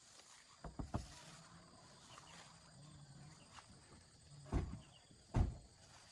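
Dull thumps: two close together under a second in, then two louder ones near the end, over a steady faint high insect chirring.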